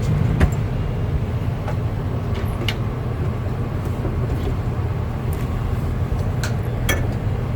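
Steady low rumble of a standing passenger train during boarding, with a handful of light knocks and clicks scattered through it.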